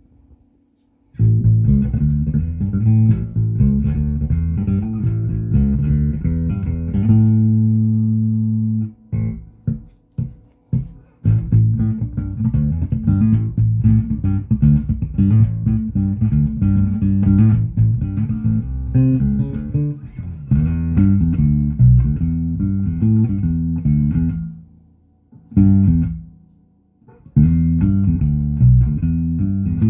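Fender Player Precision Bass, fitted with a Fender Hi-Mass bridge, played unaccompanied as a sound test: a run of plucked bass lines starting about a second in. A note is held and left to ring about seven seconds in, followed by a few short stabs and brief pauses before the playing picks up again.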